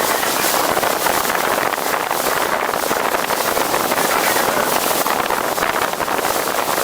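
Small motorboat running steadily across open water, engine and rushing water blended into an even noise, with wind buffeting the microphone.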